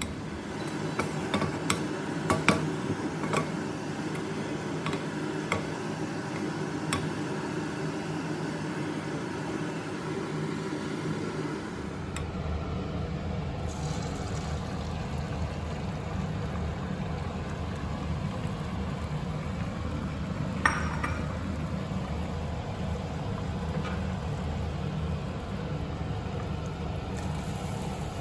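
Home kitchen cooking noises. For the first dozen seconds there is a run of light clinks and taps of utensils on bowls, then a steady low hum with only an occasional click.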